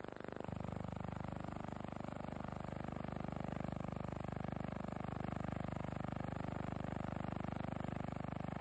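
Steady low hum and hiss with a fast, even flutter, stepping up about half a second in: film-transfer noise rather than recorded sound, since the 1927 newsreel is silent.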